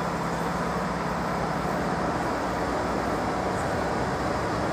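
Train at a station platform: a steady rumble, with a low hum that drops out about two seconds in.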